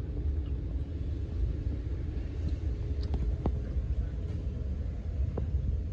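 Steady low background rumble, with a faint steady hum and a few light clicks.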